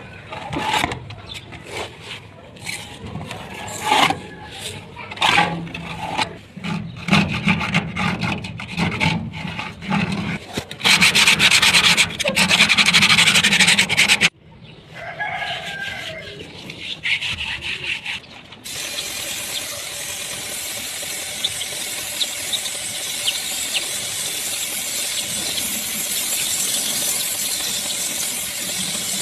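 Hand scraping or sanding of a surface being prepared for repair and painting: many short rubbing strokes, then a louder continuous stretch of scraping that stops suddenly. The last third is a steady even hiss.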